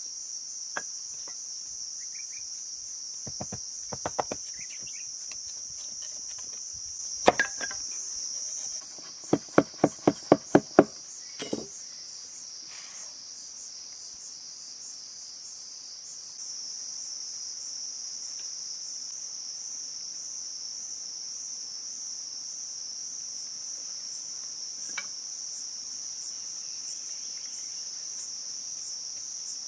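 Steady high-pitched chorus of insects, with a knife blade knocking on bamboo: scattered taps in the first few seconds, then a quick run of about six sharp, loud knocks about ten seconds in.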